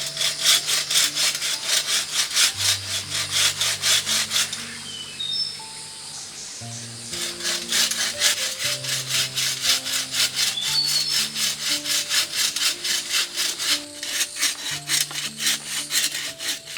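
Hand saw cutting through wood in fast, even strokes, about four to five a second, stopping after about four seconds and starting again a couple of seconds later, with a short break near the end. Soft background music with long low notes plays underneath.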